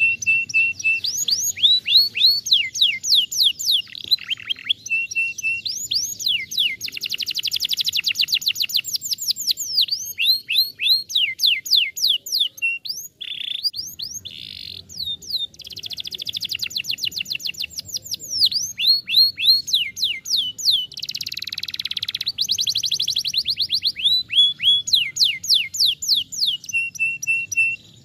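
Domestic canary singing a long, fast song: runs of rapid trills, each a train of quick downward-sweeping notes, changing speed from phrase to phrase with a few short breaks.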